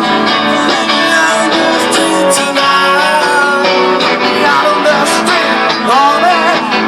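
Live music from two guitars being strummed, with a voice singing a line near the end.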